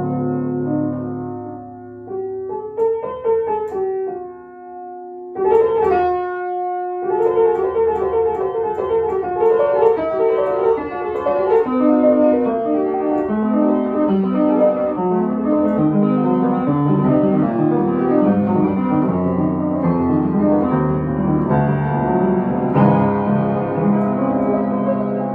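Upright piano played solo in classical style: a few slow held notes and a sudden loud chord about five seconds in, then a dense passage of many quicker notes.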